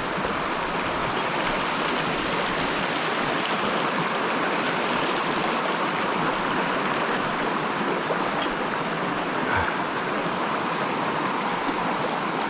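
Mountain trout stream rushing steadily over rocks, an even, unbroken water noise.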